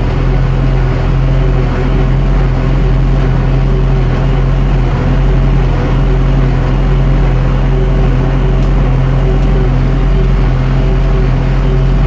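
A tractor running steadily while towing and driving a Claas Markant 40 small square baler that is picking up straw. The engine and the baler's machinery make one steady low drone.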